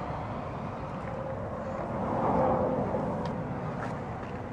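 Outdoor traffic noise: a passing vehicle swells and fades around the middle. A couple of light clicks come near the end.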